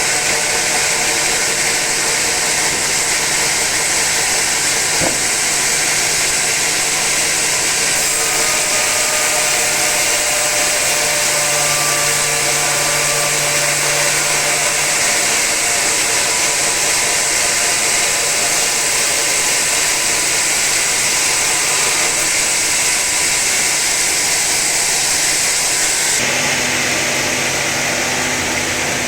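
Sawmill saw cutting through a teak log, a steady loud hiss of blade in wood over a machine hum. Near the end the high hiss eases and the hum changes.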